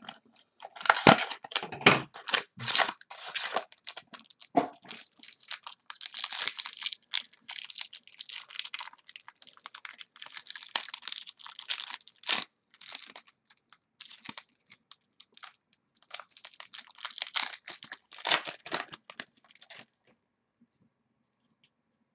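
Trading card pack being torn open and its wrapper crinkled, with cards and plastic sleeves handled: a long run of crackling and small sharp clicks that stops shortly before the end.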